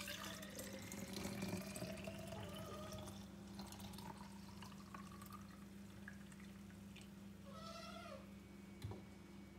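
Milk formula poured from a cup into a plastic feeding bottle, the pitch of the trickle rising as the bottle fills. A short high animal cry comes about three-quarters of the way in, followed by a single knock.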